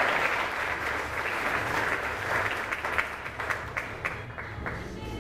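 Audience applauding, a dense patter of clapping that thins out and dies down near the end.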